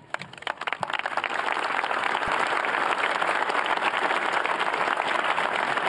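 Audience applauding: a few claps at first, building within about two seconds into steady, full applause from a large crowd.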